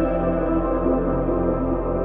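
Slow ambient background music with long sustained chords.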